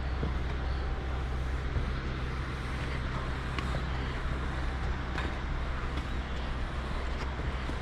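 Steady low rumble with a few light, scattered clicks while a hiker walks down a stepped forest trail.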